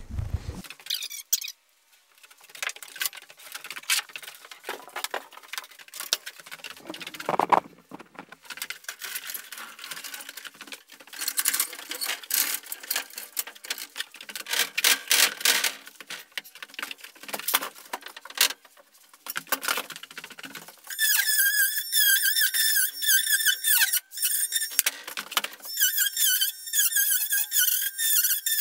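Scattered clicks and knocks as a drywall sheet is handled and raised on a drywall lift. About two-thirds in, a power driver's high whine follows in two long runs with a wavering pitch, as screws are driven through the drywall into the ceiling joists.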